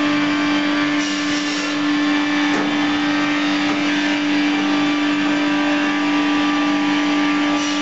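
Machines of an FBST-220 milling-and-sawing timber line running steadily with their electric motors, a loud even drone with a strong constant hum and no break.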